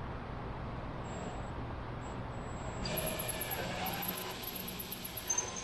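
Cordless drill starting about three seconds in, its motor whining as the bit drills a bolt hole through wood, the sound rising and falling unevenly as it cuts. A low steady shop hum runs underneath.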